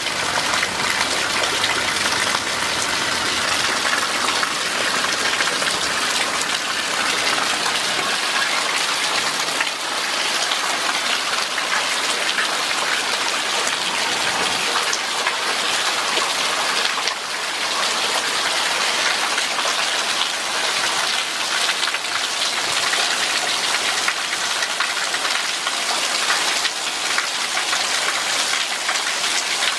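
Steady rainfall: a dense, even hiss of drops pattering down without letup.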